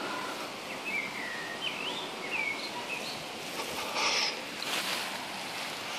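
Garden songbird singing: several short whistled phrases gliding up and down in pitch, over a steady hiss of breeze outdoors. A brief louder burst of noise comes about four seconds in.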